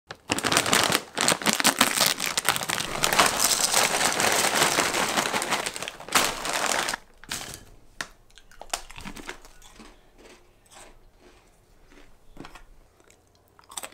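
Plastic snack bag of mini pretzels crinkling loudly for about seven seconds, then only scattered light rustles and clicks.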